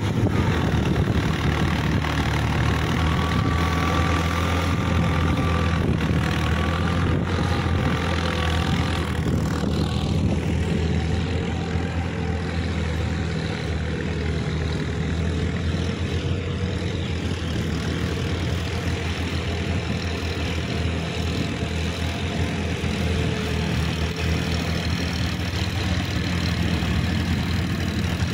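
Diesel farm tractor engine running with a steady low note while pulling a rear rotary tiller through field soil.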